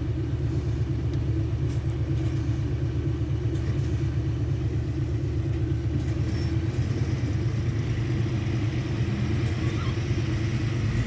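Heavy diesel engine of construction machinery running steadily with a low, even throb.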